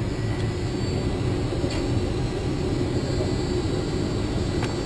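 Jet airliner taxiing, heard from inside the cabin: a steady low rumble of engines and cabin air.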